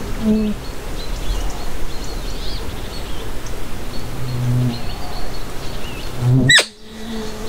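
Summer meadow ambience: flies buzzing close by in short passes, with small birds chirping faintly. Near the end a brief sharp rising sound cuts in, followed by a moment of hush.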